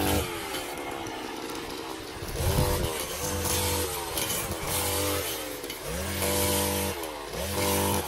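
Petrol brush cutter running while mowing tall grass, its engine speed rising and falling every second or two as the throttle is worked.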